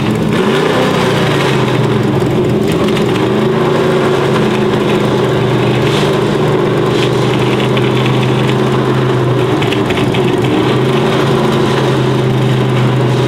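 1970 Plymouth Superbird's 7.0-litre V8 idling, with a short rise and fall in engine speed near the start.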